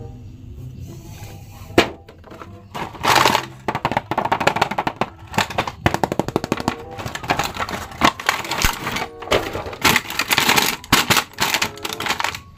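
Background music, then a sharp click about two seconds in, followed by dense crinkling and rustling of clear plastic toy packaging as an action figure is unwrapped from its bag.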